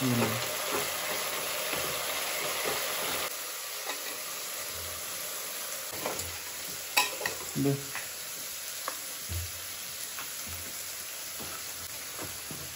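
Food sizzling as it fries in oil in a kadai, a steady hiss that eases slightly about three seconds in, while it is stirred. From about six seconds in, scattered clicks and scrapes of a metal ladle and a wooden spatula against the pans.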